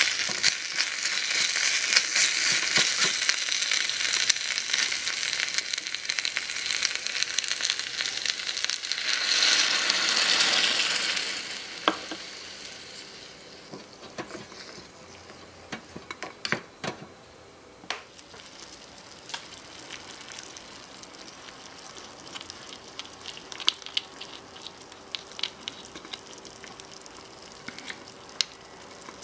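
Chicken pieces sizzling in hot oil in a tiny stainless steel saucepan, stirred with a small wooden spoon. The sizzle swells around nine to eleven seconds in, then drops sharply to a soft simmer once the wetter tomato mixture is in the pan. Through the quieter part come scattered clicks of the spoon against the pan.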